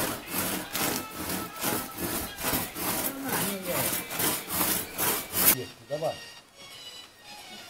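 Two-person crosscut saw cutting through a sweet cherry trunk, pushed and pulled in an even rhythm of about two strokes a second. The strokes stop about five and a half seconds in.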